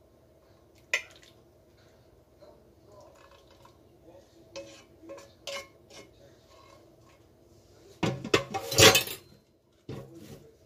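Wooden tongs scraping and tapping a frying pan and a plate as sauce and onion rings are scraped out onto a serving plate: scattered clicks and knocks, with a louder clatter of scraping about eight seconds in.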